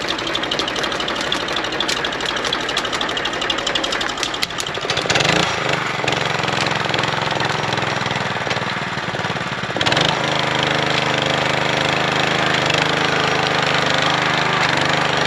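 A motor engine running with a fast rattling knock. Its note shifts about five seconds in and settles into a steadier hum about ten seconds in.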